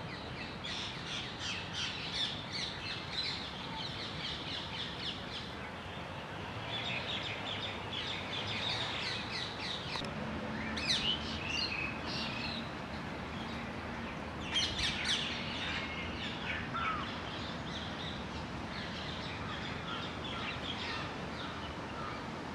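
Birds chirping and calling outdoors: runs of quick repeated chirps, with two louder bursts of calls about halfway and two-thirds of the way in.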